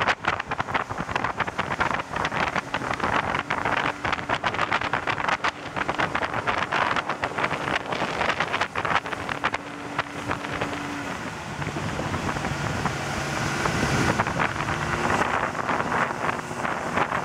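Outboard fishing boat running at speed: wind buffeting the microphone and water rushing and slapping at the hull over a steady engine note. In the second half another outboard boat passes close, its engine note shifting in pitch as it goes by.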